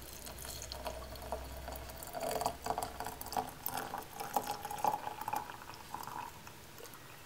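Boiling water poured in a thin stream from a kettle into a porcelain teapot's strainer onto dried linden blossom, trickling and splashing as the pot fills. The pour stops near the end.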